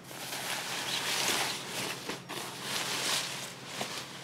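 Clothing being handled: fabric rustling and rubbing in a few swells, easing off near the end.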